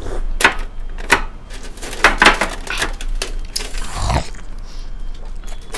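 A string of sharp clicks and knocks from juice glasses and a glass jar being drunk from and set down on the table, then a softer rustle about three and a half seconds in as the momos are picked up to eat.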